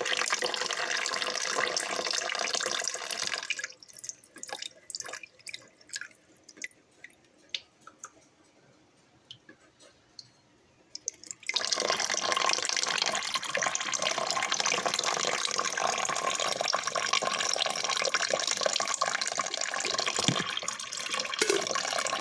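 Water poured in a steady stream from a glass coffee carafe into the reservoir of a 12-cup drip coffee maker. The pour stops about three seconds in, leaving scattered drips, and resumes as a steady stream about twelve seconds in.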